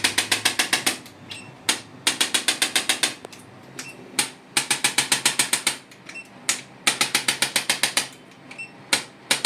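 Electric chiropractic adjusting gun firing in repeated bursts of rapid sharp clicks, about ten a second, each burst lasting about a second with a short pause between, as it delivers impulses along the lumbosacral spine.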